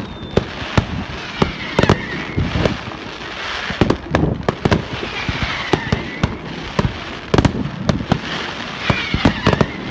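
Fireworks display going off: a dense, irregular run of sharp bangs, several in quick succession at times, over continuous crackling.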